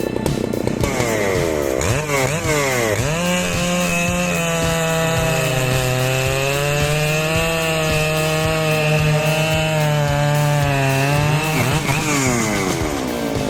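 Husqvarna 3120 XP two-stroke chainsaw, 118.8 cc, revving up, then running steadily under load through wood for about nine seconds with its pitch sagging slightly midway, before revving up and down again near the end.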